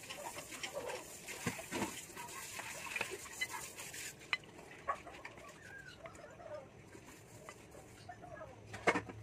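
Pork cutlets being breaded by hand on ceramic plates: scattered light clinks and taps against the plates, with a soft rustle of flour during the first few seconds.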